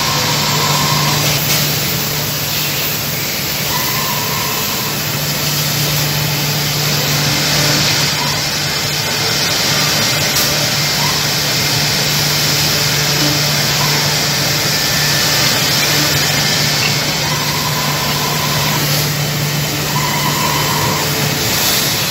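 Woodmaster WM-5x2CNC ten-spindle CNC mortising machine running: a steady, loud machine noise with a low hum, and a brief higher whine that comes in several times.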